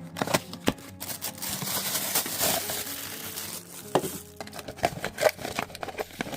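Plastic packaging crinkling and rustling as a haul parcel is handled and opened, with sharp ticks and taps before and after a dense stretch of crinkling in the middle.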